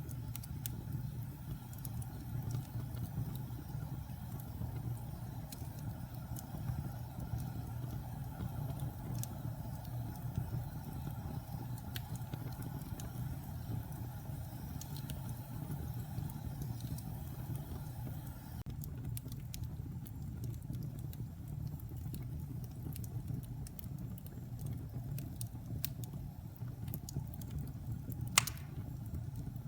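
Log fire burning in a fireplace: a steady low rumble of flame with scattered small crackles and one sharper pop near the end.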